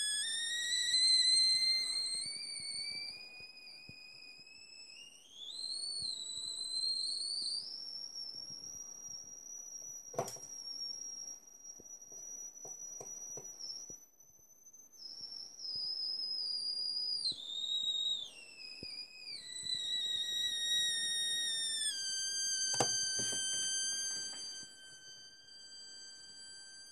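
A 555 timer astable oscillator's rectangle-wave output plays through a small speaker as a high, buzzy whistle. Its pitch glides up over the first eight seconds or so, holds high, then glides back down to where it began, as the potentiometer that sets the capacitor's charging speed is turned. There is a sharp click about ten seconds in.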